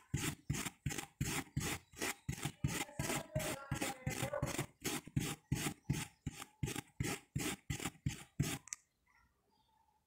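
A small metal washing-machine thermo-actuator contact is rubbed back and forth on dry steel wool in quick, even scraping strokes, about three to four a second, scrubbing rust off it. The strokes stop shortly before the end.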